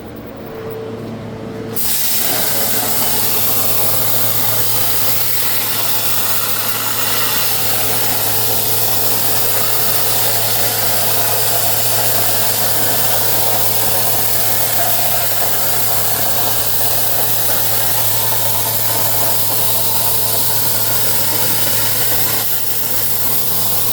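CNC plasma cutter firing about two seconds in and cutting with a loud, steady hiss over a constant low hum, dipping briefly near the end.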